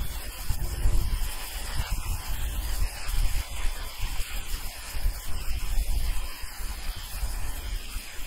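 Ryobi 1600 psi electric pressure washer's turbo-nozzle water jet hissing steadily as it blasts moss off asphalt roof shingles, over a gusty low rumble of wind on the microphone.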